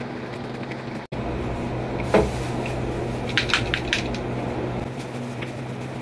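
A kitchen knife cutting a tomato on a plastic cutting board, heard as a single knock about two seconds in, then a quick run of about five sharp taps a second later, over a steady low hum.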